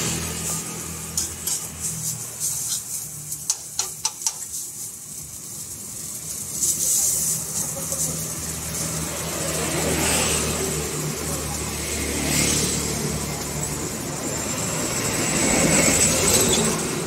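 Metal tongs clicking against a frying pan as kebab meat is stirred, a quick run of clicks between about one and four seconds in. Underneath, steady street-traffic noise, with vehicles swelling past several times.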